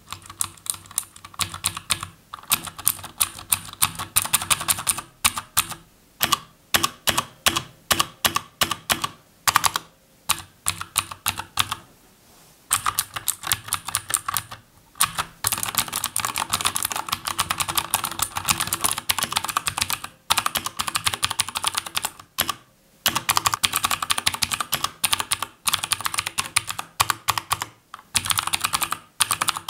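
Fast typing on a Xiaomi Yuemi MK01B mechanical keyboard with clicky blue switches, a rapid stream of sharp key clicks broken by a few short pauses.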